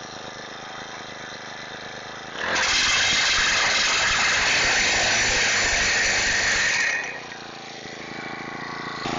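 Higos HGS-65 gas-powered T-post driver's 38 cc four-stroke engine running just after starting: it idles, is throttled up to full speed about two seconds in for around four and a half seconds, then drops back to idle.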